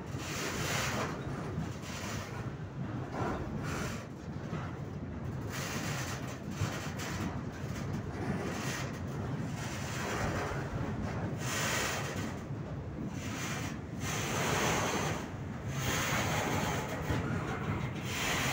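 Freight train cars rolling slowly along the track with a steady low rumble, overlaid by wind buffeting the microphone in gusts that swell and fade every few seconds.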